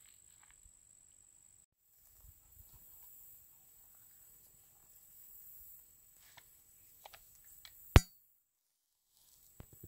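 Slow, quiet footsteps through dry leaf litter on a forest trail, over a faint steady high-pitched insect drone. One sharp click about eight seconds in is the loudest sound.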